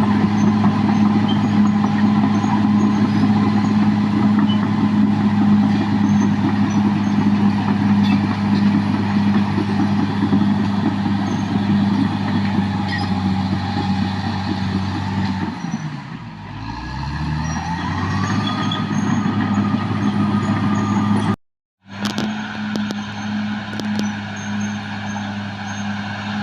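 Caterpillar D6R XL bulldozer's diesel engine running steadily at working revs; about two thirds through, the engine speed drops and then climbs back up. Near the end the sound cuts out for a split second and the engine resumes.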